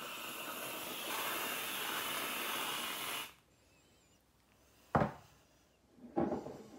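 Aerosol whipped cream can spraying in a steady hiss for about three seconds. About five seconds in comes a sharp knock, and near the end a clunk as the glass mug is handled on the worktop.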